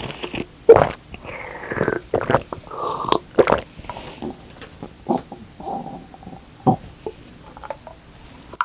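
Close-miked mouth sounds of sucking and slurping a blue liquid or jelly dessert from a small round container: irregular wet slurps, smacks and gulps, the loudest about a second in.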